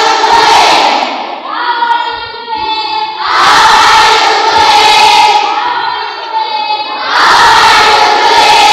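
A class of students chanting loudly together. The sound swells into three loud stretches, each a few seconds long, with quieter stretches of voice between them.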